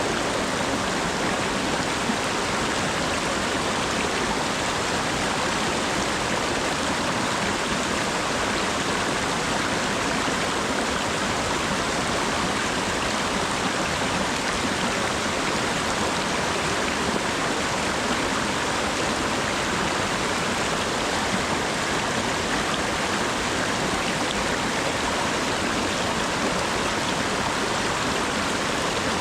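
Steady autumn rain falling, a constant even hiss of water with no distinct drops or breaks.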